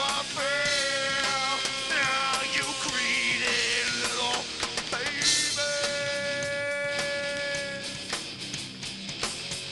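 Rock band playing live, with drums under a bending lead melody line that ends in one long held note a little past halfway. The music gets quieter near the end.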